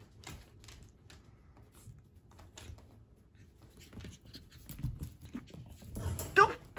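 A small puppy scrambling on a blanket and hardwood floor: light scattered clicks and scuffs. Near the end it tumbles, with a sharp knock and then a short, loud cry.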